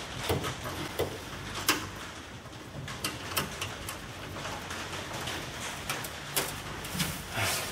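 Scattered sharp clicks and taps from hand work on a 1964 Thunderbird's trunk lid hinges while the lid is being fitted and its bolts started, over a steady background hum.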